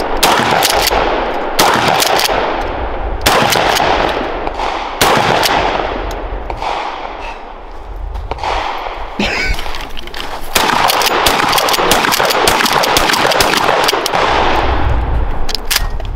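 Pump-action shotgun fired repeatedly, a shot about every second and a half, each with a long echo rolling after it. In the second half, many sharper shots follow in quick succession.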